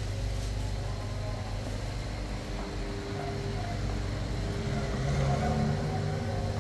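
Steady low background hum with a faint steady tone, and faint wavering sounds over it in the middle and near the end.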